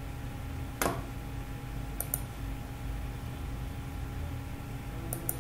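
Computer mouse clicking: a single sharp click about a second in, then two quick pairs of clicks, one around two seconds in and one near the end, over a steady low hum.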